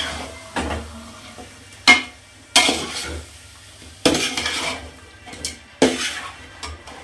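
Steel spatula clanking and scraping against a large aluminium pot as raw chicken is stirred into hot oil and spices, with sizzling underneath. The strokes are irregular, about one every second or so, each ringing briefly.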